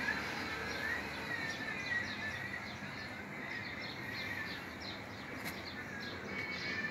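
Small birds chirping in the background, a string of short quick chirps and some thin gliding whistles, over a steady hiss.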